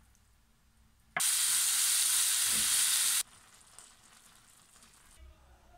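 Food sizzling in a hot frying pan: a loud sizzle starts about a second in and cuts off abruptly after about two seconds, followed by a fainter sizzle.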